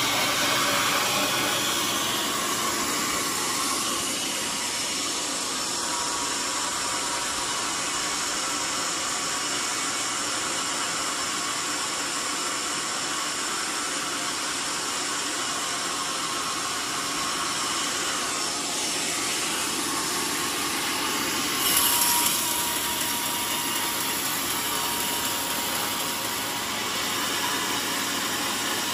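Band sawmill running with its blade cutting through mahogany: a steady, even hiss of sawing with a faint constant whine. A brief louder rush of noise comes about three quarters of the way through.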